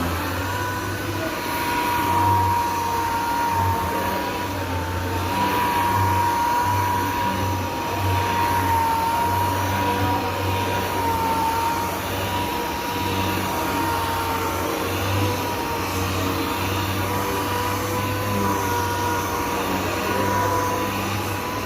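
Power sander running steadily, machine-sanding epoxy primer on a car body panel with 600-grit paper. Its motor whine wavers a little in pitch as it works and stops at the very end.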